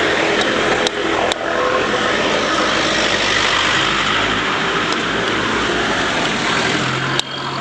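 Steady, loud rushing street noise with a few sharp clicks, about a second in and again near the end.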